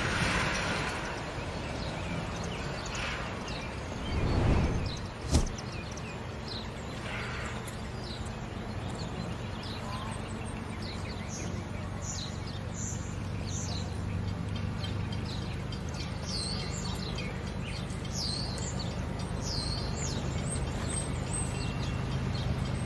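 Small birds chirping in short, high calls over the low, steady rumble of an approaching diesel freight locomotive, which grows slightly louder toward the end. A car passes close by about four seconds in.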